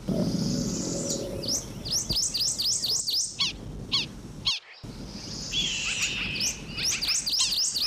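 Songbird chirping: a fast run of repeated high sweeping notes, about four a second. It breaks off abruptly about halfway through and starts over.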